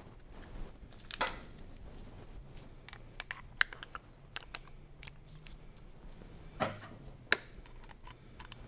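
Small metallic clicks and taps of brake pads and a motorcycle's front brake caliper being handled, with a few sharper clicks spread through.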